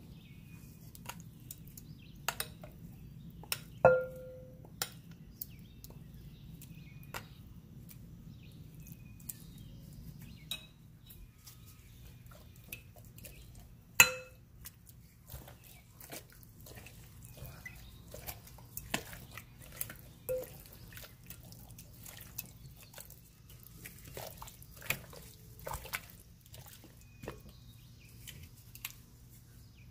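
Metal kitchen tongs clicking and knocking against a bowl while turning raw chicken pieces in a thick, wet marinade paste, with soft wet squelches. Two louder knocks with a short ring come about 4 and 14 seconds in.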